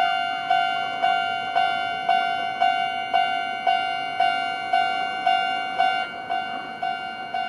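Japanese railway level-crossing warning bell ringing, a bright electronic ding repeated about twice a second, each strike fading before the next. About six seconds in the rhythm turns uneven.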